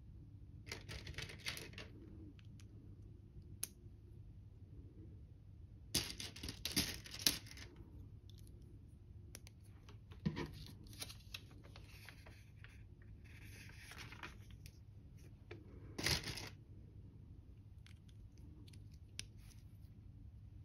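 LEGO plastic bricks clicking, scraping and rattling as they are handled and pressed together, with loose pieces stirred in a tray. The sounds come in short clusters of clicks, the loudest about six to seven seconds in and a sharp one about sixteen seconds in.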